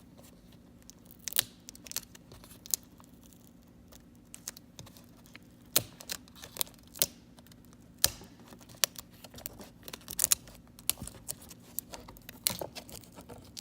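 Adhesive tape being peeled back from a laptop's LCD ribbon cable connector, with scattered small clicks and crinkles as the tape and connector are handled.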